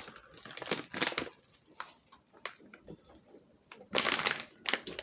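Plastic food packaging being handled and turned over, with scattered light clicks and crinkles and a louder rustle about four seconds in.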